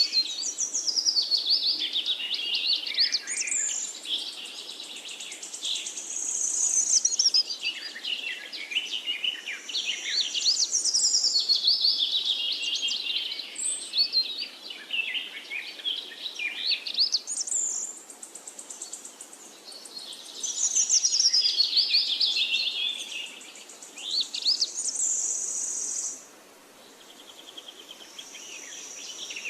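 Songbirds singing long, rapid phrases of trills and falling notes, each lasting several seconds, with short pauses between them.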